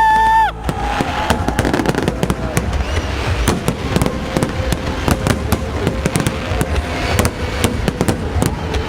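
Fireworks going off: a dense, irregular run of bangs and crackling pops, several each second. Right at the start a short, shrill steady tone sounds for under a second and cuts off.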